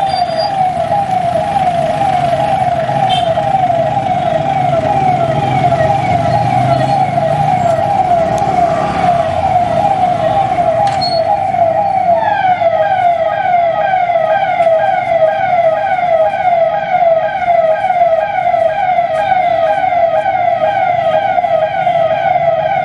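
Police vehicle sirens sounding continuously in a fast, repeating pitch sweep. About halfway through a second, brighter siren layer joins. A low engine and traffic rumble runs underneath in the first half.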